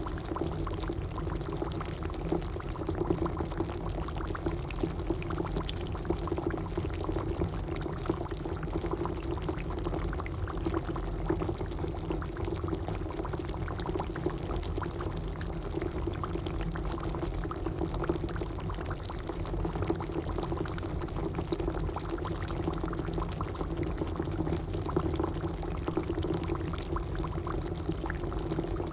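Food cooking in a pan: a continuous, even sizzling and bubbling with dense fine crackle that holds steady throughout.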